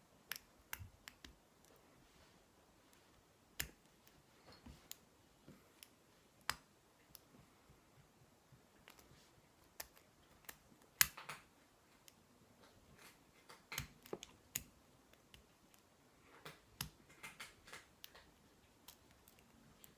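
Faint, irregular clicks and light scrapes of a pick and tension tool working the pins inside a Lockwood five-pin oval lock cylinder during single-pin picking.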